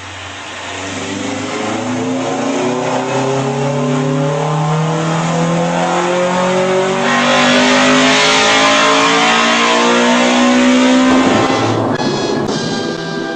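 Honda VTEC engine revving up under hard acceleration, its pitch climbing steadily for about ten seconds and turning harsher about seven seconds in, then cutting off abruptly. A few clicks and music follow near the end.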